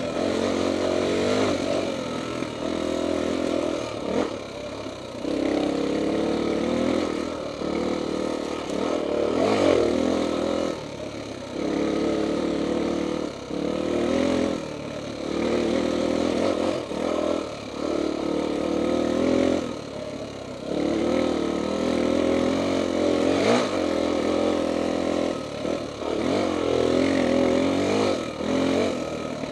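Honda XR400 dirt bike's air-cooled single-cylinder four-stroke engine running while riding, with the throttle rolled on and off every couple of seconds so the engine note rises and drops over and over.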